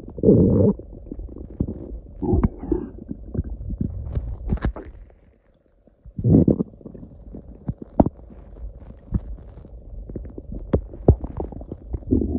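Stomach growling and gurgling in irregular bursts, loudest about half a second in, around two and a half seconds and around six seconds, with many small pops and clicks between and a brief silent gap just before the six-second burst.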